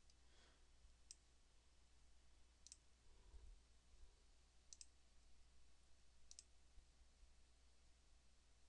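A handful of faint computer mouse clicks, some in quick pairs, over a low steady hum, otherwise near silence.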